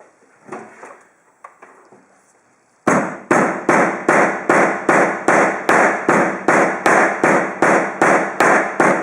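Hammer striking an HDMI cable over and over in the same spot to crush it, in quick even blows about two and a half a second, starting about three seconds in after a few faint knocks.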